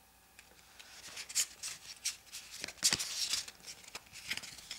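Pokémon trading cards sliding and flicking against each other as a small stack is reordered in the hand: a series of short crisp rustles, with one sharper snap about three seconds in.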